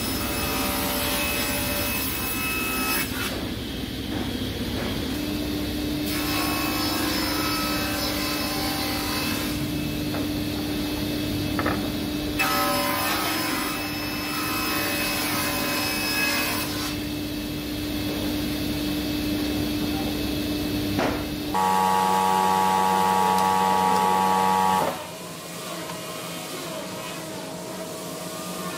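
Sliding panel table saw running and cutting wooden boards, its sound changing with each pass through the wood. Near the end a louder, steady machine hum takes over for about three seconds, then the sound drops to a quieter level.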